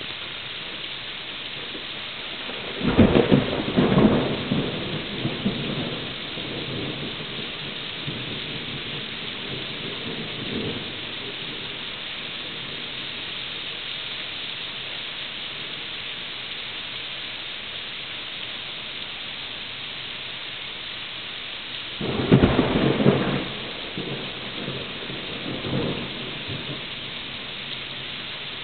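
Steady rain with rumbles of thunder: a strong rumble about three seconds in and another about twenty-two seconds in, each lasting a couple of seconds, with fainter rumbles after each.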